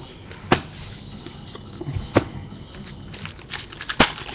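Trading cards and their packaging being handled: sharp clicks or snaps about half a second, two seconds and four seconds in, with light crinkling in between.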